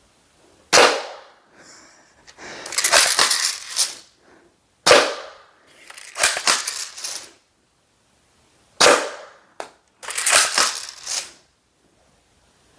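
Cheap pump-action airsoft shotgun fired three times, a sharp snap about every four seconds. Each shot is followed by the rattly pump being worked back and forth to cock and load the next shot.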